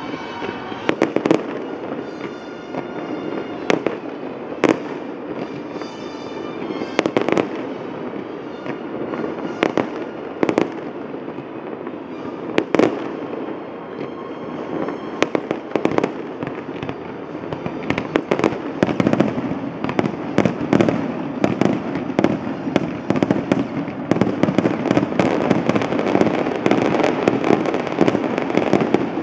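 Aerial fireworks going off: separate sharp bangs every second or so at first, then past the middle a dense, continuous run of bangs and crackling.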